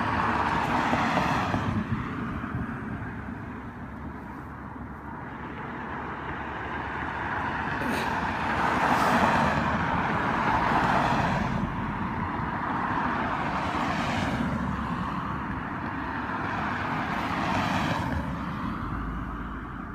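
Road traffic: cars passing, a broad rush that swells and fades over several seconds at a time, with a single sharp click about eight seconds in.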